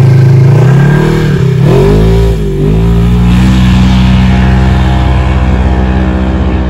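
Dirt bike engine running hard and close up, very loud. About two seconds in, the pitch dips and climbs again as the throttle is worked, then holds steady at high revs, easing slightly near the end.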